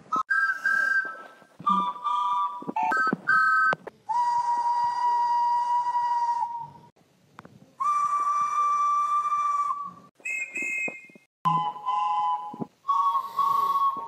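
A series of steam locomotive whistle blasts: several short two-note toots, then two long steady whistles of two to three seconds each on slightly different pitches, a short higher-pitched toot, and more two-note toots near the end.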